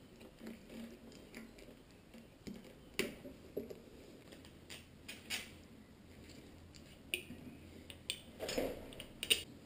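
Scattered small clicks and rustles of motorcycle wiring being handled by gloved hands: plastic connectors and cables moved and fitted. The sharpest clicks come about three seconds in and near the end.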